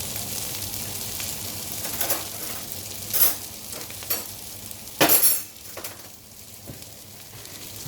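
Food sizzling in a frying pan while a utensil scrapes and clinks against the pan several times, the loudest stroke a little past the middle; the cook is taking some out to test if it is cooked.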